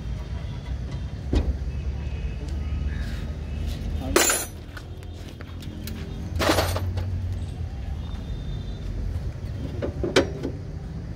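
A steady low rumble with a few sharp clicks and two short loud hissing bursts, about four and six and a half seconds in.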